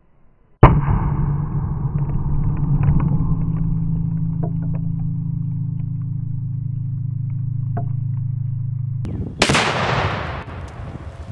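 Half-pound homemade Tannerite target detonating: a sudden loud blast about half a second in, followed by a long steady low hum. A second loud blast, with a hiss that fades slowly, comes near the end.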